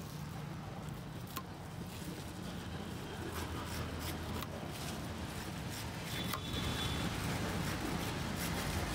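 Long kitchen knife slicing the spiky rind off a jackfruit, with rubbing and scraping and a few sharp clicks of the blade on the wooden board, over a steady low background hum.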